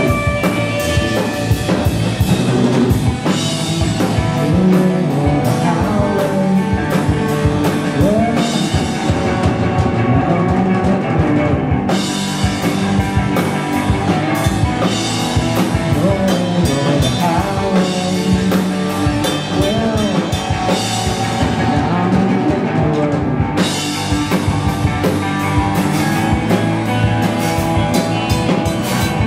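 Live rock band playing loud: drum kit with steady cymbal and drum hits under electric guitars and bass guitar.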